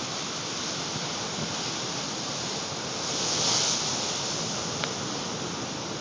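Atlantic storm surf after a nor'easter crashing and washing in a steady rush, swelling a little about halfway through.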